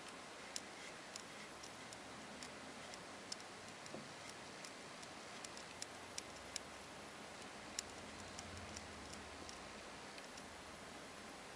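Faint, irregular small clicks from a Cartier Pasha automatic wristwatch as its crown is turned to set the hands.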